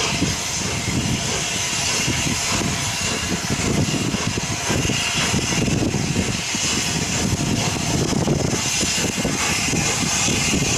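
Steam locomotive working under power, a continuous run of exhaust beats over a steady hiss of steam.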